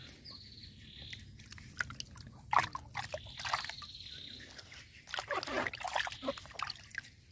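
Water sloshing and splashing in a small plastic bucket as a gloved hand stirs through it, in irregular bursts, busiest about two and a half seconds in and again near the end.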